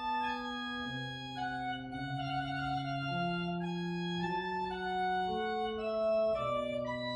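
Organ playing slow, sustained chords in several voices, the notes held for a second or two before moving to the next chord.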